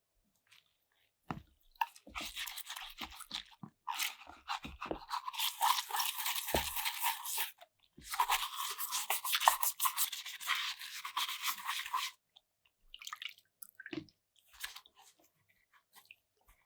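Rapid rubbing strokes on a hard surface in two long bouts, a few seconds each, with a few light knocks at the start and short scrapes near the end.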